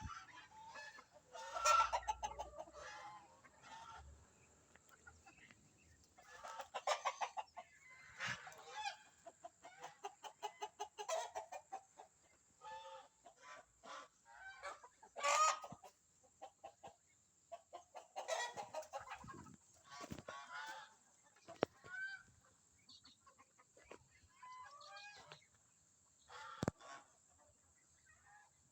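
Chicken hen squawking and clucking in repeated bursts, with duck calls mixed in, as ducks try to mate with her.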